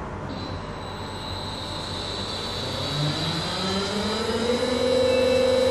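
Krysteline K500 Imploder, a hydraulically driven glass-crushing machine set to full speed, starting up. A high whine comes in just after the start, then a hum rises in pitch and grows louder, levelling off into a steady tone about a second before the end as the machine comes up to speed.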